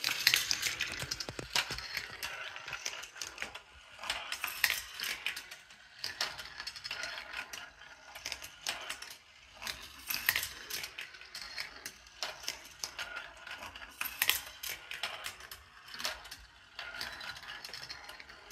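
Steel marbles rolling along the metal-railed tracks and plastic curve pieces of a Gravitrax marble run, with a steady, irregular patter of clicks and rattles as they drop and bounce through the pieces.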